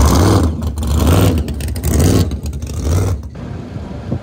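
Pickup truck's engine revving in four quick blips about a second apart, then dropping back about three seconds in.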